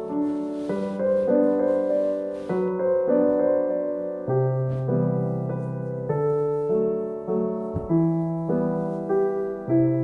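Background piano music, soft and gentle, with chords changing about every half second.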